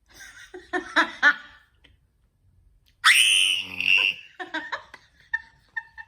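A girl laughing in short bursts, then a loud high-pitched squeal about three seconds in that lasts about a second, followed by more giggling.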